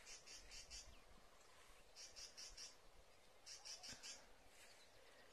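Near silence with faint, high insect chirping: short trains of four or five quick pulses, repeating about every one and a half seconds.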